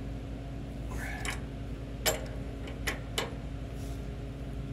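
Metal tool clinks as a 3/4-inch breaker bar and an adjustable wrench are shifted on the steel bolt of a bushing press tool: a light scrape about a second in, then three sharp clicks over the next second and a half, over a steady low hum.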